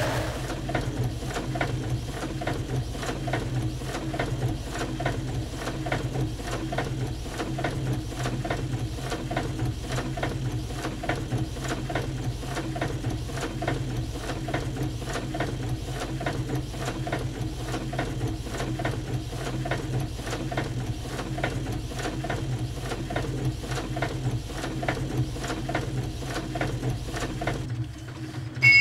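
Printing press machinery running: a rapid, even mechanical clatter over a steady low hum, repeated as the material of an experimental composition. The hum drops out near the end.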